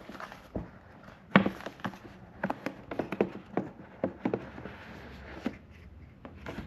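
Hands working the lid of a rigid cardboard laptop box loose and lifting it off: a string of light taps and knocks of cardboard, the sharpest about a second and a half in, with a stretch of soft rubbing near the middle.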